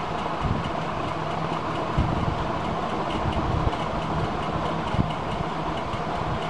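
Steady mechanical background noise with a low hum and faint regular ticking, and a couple of soft knocks.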